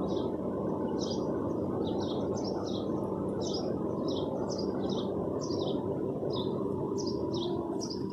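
A small bird chirping over and over, short high chirps about twice a second, over a steady low background noise.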